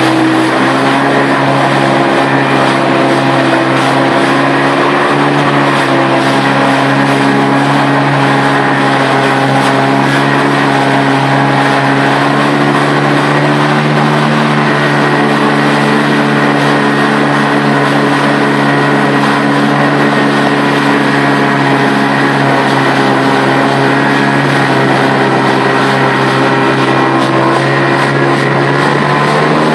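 Marine engine running at speed at a nearly steady pitch, over constant rushing water and wind noise, heard from aboard a moving boat.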